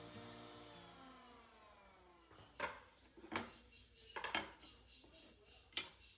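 Background music fading out, then a few sharp wooden knocks and taps, like pieces of wood being handled and set down on a workbench.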